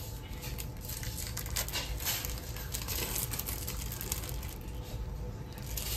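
Thin plastic bag crinkling as cheese slices are pulled out of it by hand, over irregular crackling and popping from a pan of tteokbokki cooking on the stove.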